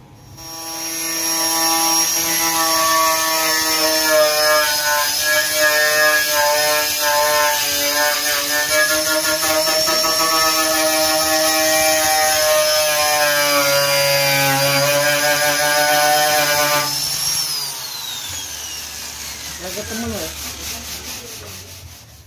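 Angle grinder working the rusted steel body shell of a Vespa scooter: a steady high motor whine with the rasp of the disc on metal, its pitch sagging a little under load. About seventeen seconds in it is switched off and the whine falls away as the disc spins down.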